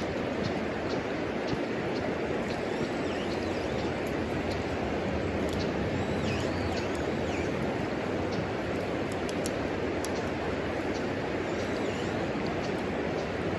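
Wood fire burning in a homemade wood stove, crackling with scattered sharp pops over a steady rushing noise.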